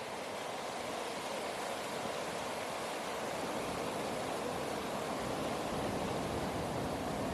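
Steady rushing of flowing river water, an even hiss with a low rumble that grows slightly louder in the second half.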